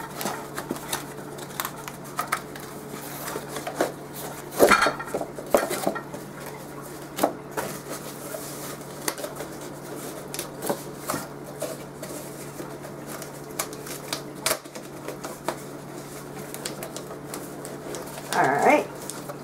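Glass food-storage containers clinking and knocking against each other and the tabletop as they are unpacked, mixed with cardboard packaging being handled. The knocks come irregularly, loudest about five seconds in, with a brief squeaky sound near the end.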